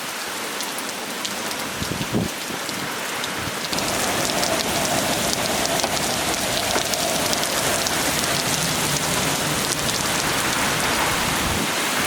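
Heavy rain pouring down in a windstorm, a dense steady hiss that grows louder about four seconds in.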